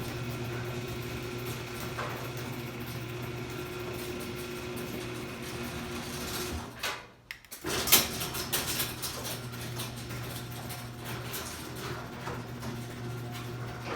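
Garage door opener motor running with a steady hum as it drives the door. The sound drops out for a moment about seven seconds in, then a sharp click comes and the motor hum runs on with light rattling.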